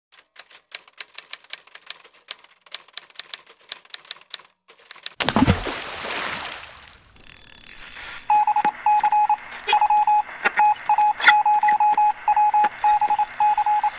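Rapid clicks like a typewriter for about five seconds, then a whoosh with a low thud, then runs of short, high electronic beeps at one pitch, in quick groups, with scattered clicks.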